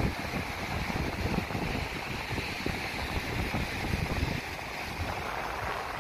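Wind buffeting the microphone in gusts over the steady hiss of breaking surf; the buffeting eases about four seconds in.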